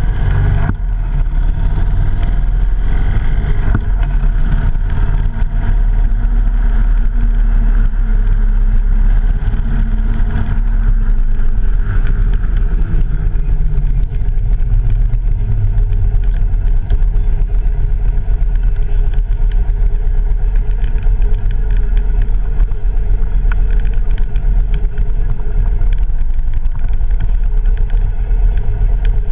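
Vehicle engine running on the move, with heavy wind noise on the handlebar-mounted action camera's microphone. A steady low rumble throughout, and an engine note that rises and falls a little as speed changes.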